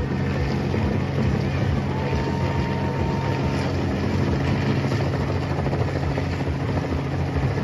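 Helicopter flying over the crowd: a steady, loud rotor drone with fast low blade chop.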